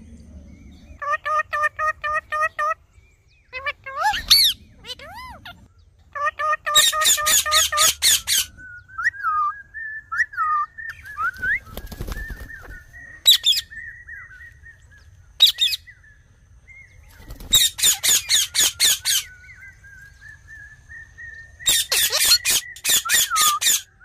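Indian ringneck parakeets calling: several bursts of rapid, harsh screeches, with pitched repeated chirps and a long thin whistled note between the bursts.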